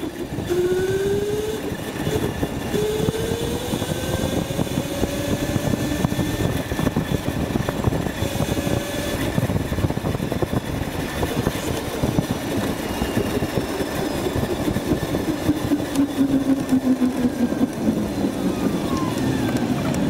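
Electric go-kart with a Motenergy ME0708 motor at full throttle: a whine climbs steadily in pitch as the kart accelerates to about 27 mph, holds near top speed, then falls away as it slows, over steady rough road noise from the tyres on blacktop.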